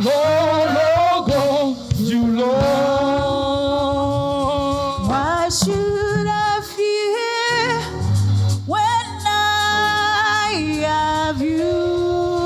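Gospel choir singing a praise song over low instrumental accompaniment. The low accompaniment drops out for about half a second around seven seconds in.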